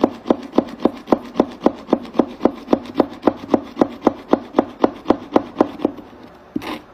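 Felt-tip paint marker dabbed repeatedly onto paper, a steady run of taps at about three a second that stops about six seconds in.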